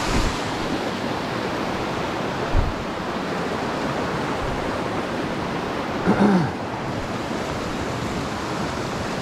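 Steady rush of a mountain creek's flowing water. A short thump about two and a half seconds in and a brief pitched sound about six seconds in.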